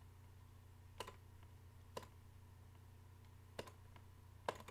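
Computer mouse clicking four times, single sharp clicks about a second apart, over a faint steady low hum.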